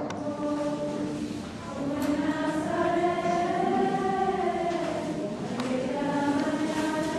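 A group of voices singing a slow hymn or chant in unison, long held notes that rise gently and fall again near the middle.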